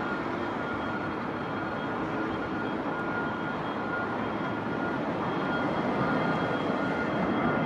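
Jet airliner engines: a steady rush of noise with faint high whining tones on top, growing slightly louder toward the end.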